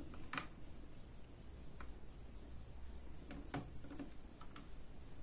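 Faint, scattered plastic clicks and taps, about five of them, from a small drone and its remote controller being handled.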